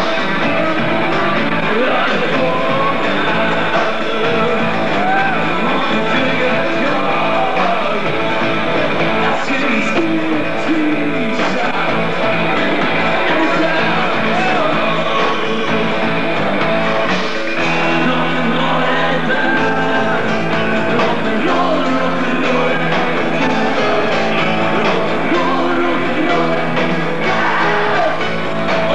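A rock band playing live, loud and steady: electric guitar with a singer's voice over the band.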